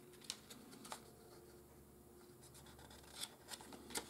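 Pages of a small paper instruction booklet being turned and handled: a few faint, brief paper crackles and flicks, a couple near the start and a small cluster near the end.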